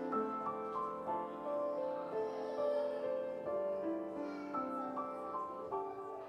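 Slow instrumental keyboard music: held chords and a melody moving note by note, with no singing.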